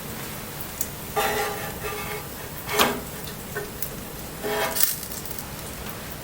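Light rain falling steadily on a bonfire. Over it come three bouts of wooden scraping and knocking: a drawn-out scrape about a second in, a sharp knock near three seconds (the loudest), and a shorter scrape near five seconds.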